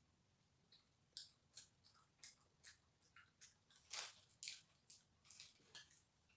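Faint mouth sounds of someone chewing a donut: soft wet smacks and clicks, a few a second, with a louder one about four seconds in.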